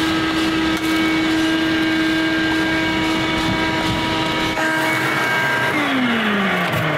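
Shop vacuum motor running with a steady whine during car-interior cleaning; a little before the end its pitch falls steadily as the motor winds down.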